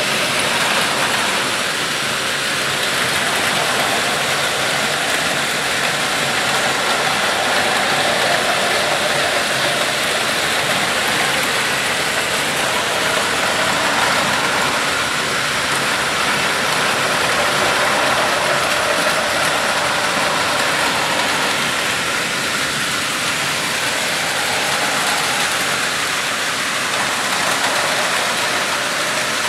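Many battery-powered Plarail toy trains running at once on plastic track: a steady, dense whirr of small motors and wheels rolling over the plastic rails.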